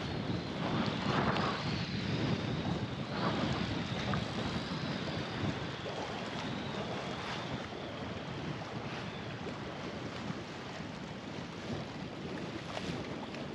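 Wind buffeting the microphone over choppy sea water, with a faint, wavering high whistle through the first half.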